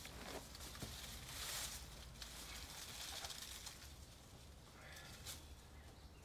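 Hands working dry sphagnum moss and soil around a tree's root ball in a large pot: faint rustling with a few light taps.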